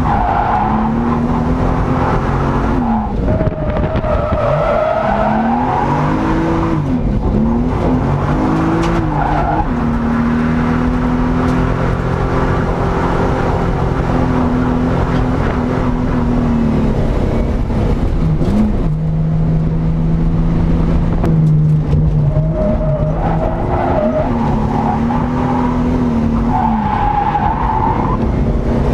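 Nissan 240SX (S13) drift car heard from inside the cabin: the engine revs up and falls back again and again, holds steady for a while midway, then sweeps again, while the rear tyres squeal as the car slides.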